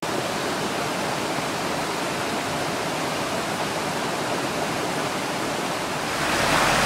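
Mountain stream rushing over rocks: a steady rush of running water that grows louder near the end.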